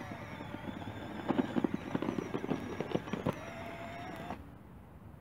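Bruder 963 RC track loader driving and turning, its small electric motors whining steadily, with about two seconds of rapid crackling and clatter from its tracks and dozer blade on gravel. The sound cuts off abruptly about four seconds in.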